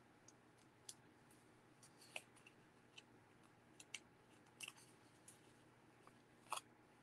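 Near silence with faint, scattered small clicks and crinkles of a vellum strip and glue dots being handled and peeled. The loudest click comes near the end.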